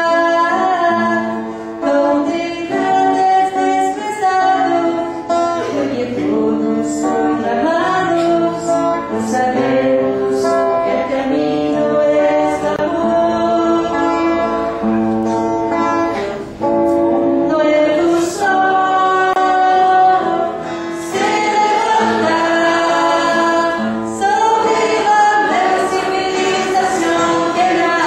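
Church choir of women's and men's voices singing a religious song.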